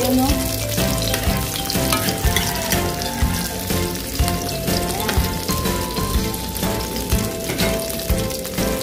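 Food frying in hot oil in a pan: a steady sizzle with dense crackling and popping.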